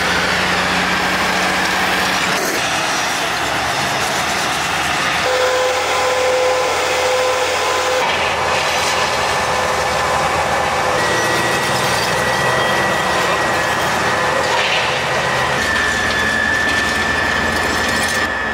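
Heavy tracked armoured vehicles running: engines and steel tracks making a loud, steady mechanical noise, with a thin steady high whine over it.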